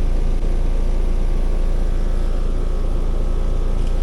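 Central air-conditioning condensing unit running in cool mode, its compressor and fan giving a steady low hum.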